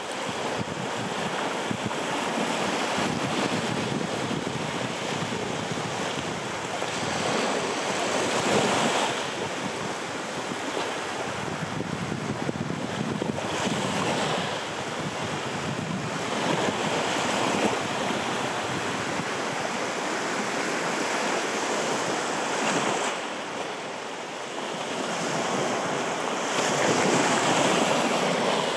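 Small waves breaking and washing up on a beach, an even rushing that swells and eases every several seconds.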